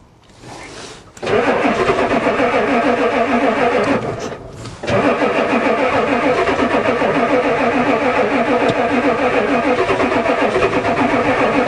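Ford diesel truck engine being cranked over by its starter, turning over steadily without catching. The cranking stops briefly about four seconds in and starts again. It is a cold crank at about 4 °C, and the owner suspects the glow plug controller is not working.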